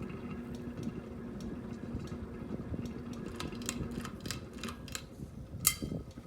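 Ceiling fan running with a steady motor hum and a regular ticking about twice a second, which grows busier in the second half. A sharp click comes near the end.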